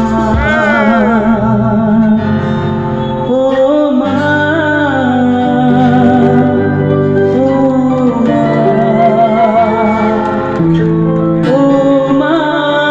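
Music: a song sung over instrumental accompaniment, with long held, wavering notes.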